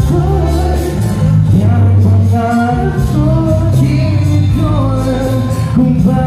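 A male vocalist singing live into a handheld microphone, with instrumental accompaniment underneath.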